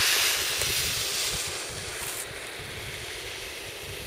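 Lit fuse of a Dynamit Super Böller 1 firecracker fizzing with a steady hiss that slowly fades, the moments before the banger goes off.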